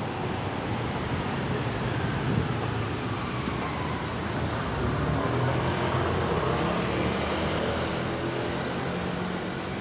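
Road traffic: cars and a motorcycle driving past on a city road, a steady hum of engines and tyres that grows a little louder around the middle.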